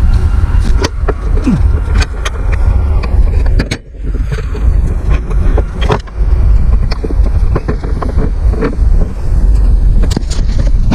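Scattered metal clanks and knocks as a hydraulic cylinder is handled and clamped in a bench vise, over a steady low rumble.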